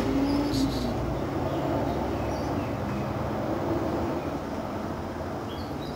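Steady low background rumble with a faint hum, no distinct events.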